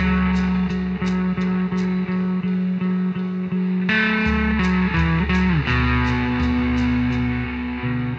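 Guitar played live, picking chords about three times a second over held low notes. The chord changes about four seconds in, and the low notes slide downward soon after.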